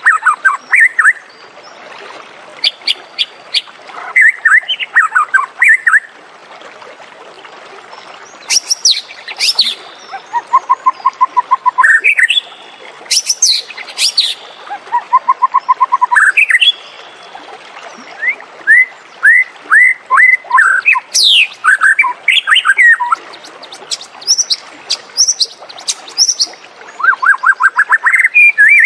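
White-rumped shama singing: a varied series of loud whistled phrases with sweeping notes, fast trills and rapid strings of repeated notes, separated by short pauses.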